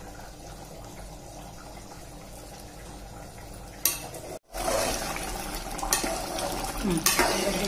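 Thick curry simmering in an open aluminium pressure cooker while a metal ladle stirs it and scrapes against the pot. The sound is soft at first, then stops for a moment about halfway through and comes back louder and closer, with the ladle scraping.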